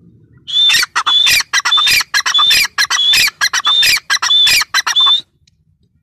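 Grey francolin (teetar) calling: a loud, rhythmic run of high repeated phrases, about two a second, starting about half a second in and stopping about five seconds in.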